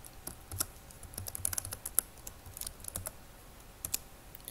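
Typing on a computer keyboard: irregular, separate keystrokes that are thickest in the middle as a short name is typed out.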